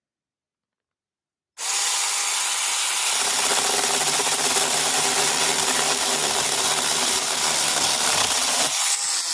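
A mini chainsaw starts up suddenly about a second and a half in and runs loud and steady as it saws through the bush's woody limbs. A lower hum joins in from about three seconds and drops away near the end, while the saw keeps running.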